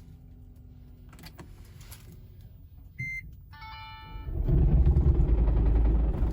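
A short beep and a brief chime, then about four seconds in a 30-series Toyota Prius's 1.8-litre four-cylinder engine starts with a loud, rapid rattling clatter that sounds like road construction. It is an abnormal engine noise that the owner puts down to carbon deposits built up in the engine.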